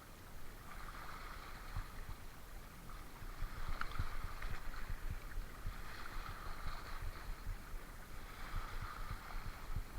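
Seawater sloshing and lapping in slow swells, with many small low knocks on the microphone.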